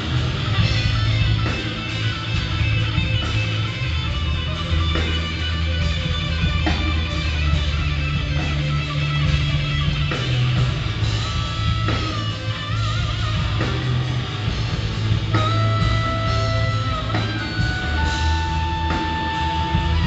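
Live blues band playing amplified: electric guitars, bass and drums. In the second half, long high lead notes are held one after another over the band.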